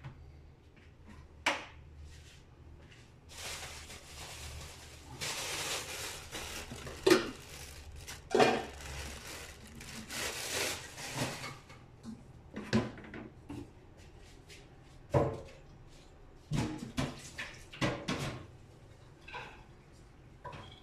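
Kitchen dishes and utensils being handled: scattered sharp knocks and clatter. From about three to eleven seconds in there is a denser, noisier stretch, and the loudest knocks come near the middle.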